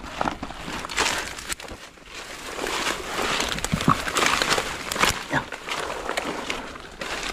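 Footsteps crunching through dry leaf litter, twigs and brush, with irregular rustling and crackling.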